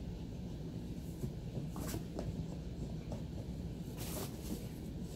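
A husky puppy nosing through shredded cardboard, making a few short scratchy rustles; the loudest comes about four seconds in.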